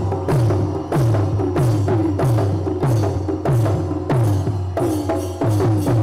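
Percussion-led background music: drum strokes about three a second, each one dropping in pitch.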